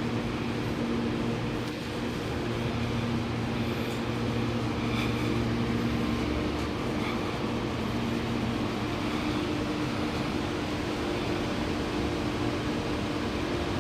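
Alstom Metropolis metro train standing at a platform with its doors open, its air-conditioning and on-board equipment giving a steady hum with a low drone.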